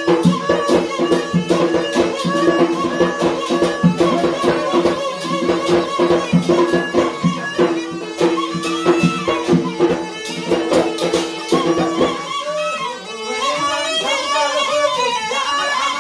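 Yemeni wedding dance music: a drum beaten fast and steadily under the held, reedy tone of a mizmar double pipe. About twelve seconds in, the drumming drops out and a wavering, ornamented melody carries on.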